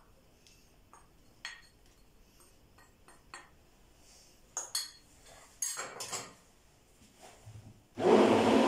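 Metal spoon clinking and scraping against a glass dish and a plastic blender beaker in a few light, irregular taps as cream powder is spooned in. About eight seconds in, an electric hand-held stick blender switches on and runs loudly, blending a chilled milk mixture for ice cream.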